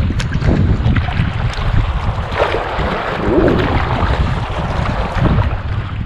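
Heavy wind buffeting the microphone on a choppy lake, with water splashing against a kayak's bow and paddle strokes in the waves.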